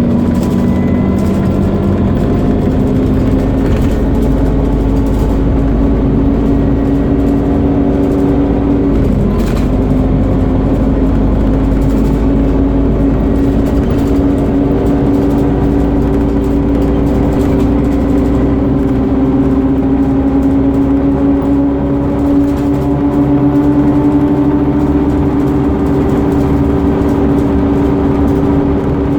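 Scania CN230UB Omnicity bus under way, its engine giving a loud, vacuum-cleaner-like "hoover" whine. The pitch climbs slowly, dips briefly about nine seconds in as it changes gear, then climbs again.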